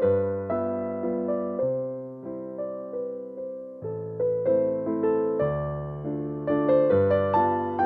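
Background piano music: a gentle melody of struck notes, each fading away.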